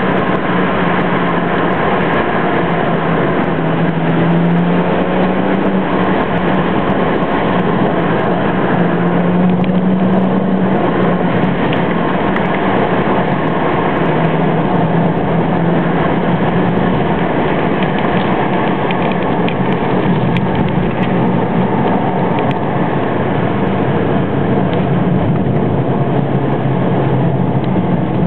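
BMW 335 twin-turbo straight-six running as the car drives along at speed, heard from inside the car with a steady rush of road and wind noise. The engine note rises and falls a few times with the throttle and settles lower over the last few seconds.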